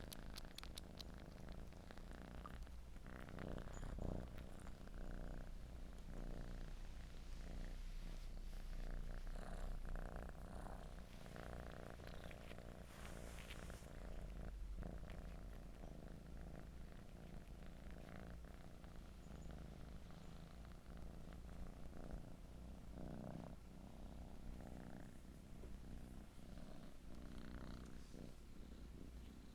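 Domestic cat purring steadily and close, with soft wet suckling clicks and rustles from a cat nursing on fabric while kneading.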